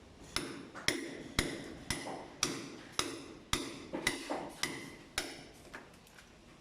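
A hammer striking metal about ten times, roughly two blows a second, each with a short metallic ring; the blows stop about five seconds in.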